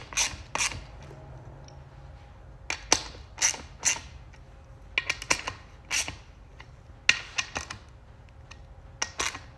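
A 1/4-inch drive hand ratchet clicking in short bursts, with pauses between, as the beadlock ring bolts are snugged down lightly by hand, not yet torqued.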